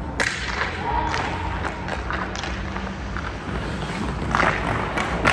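Hockey skate blades scraping on the ice as a goalie shuffles in the crease and drops into the butterfly, with sharp scrapes near the start and again about four seconds in, over a steady low hum.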